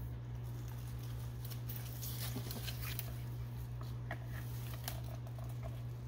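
Dry leaf litter crackling and rustling as a yellow-tail cribo snake shifts and coils its body around its prey: a run of scratchy rustles and light clicks over a steady low hum.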